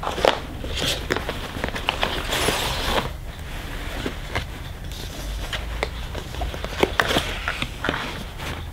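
Cardboard kit box being handled and opened: rustling and scraping of card and paper, with many small clicks and taps and a longer rustle about two seconds in.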